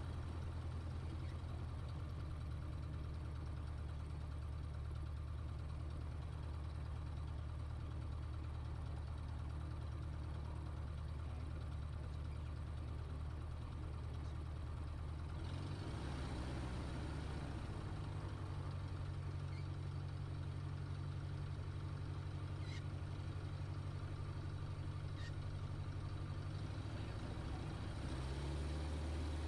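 Single-engine light aircraft's piston engine running at low taxi power, heard from inside the cockpit: a steady low drone whose pitch shifts briefly about halfway through and again near the end.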